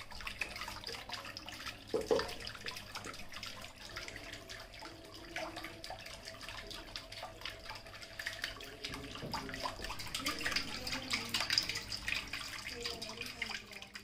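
Water from a mini submersible pump spouting up a PVC pipe and splashing and trickling over the rim of a small homemade cement fountain into the tray below.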